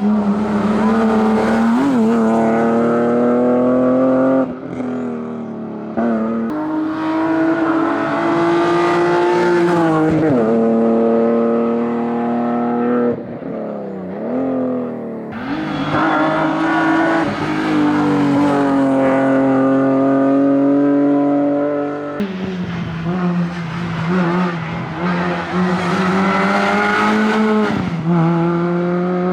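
BMW Compact rally car's engine at full throttle, its pitch climbing through each gear and dropping at every upshift, with some tyre noise. About three quarters of the way through, a Renault Clio rally car's engine takes over, also revving hard and pulling up through the gears.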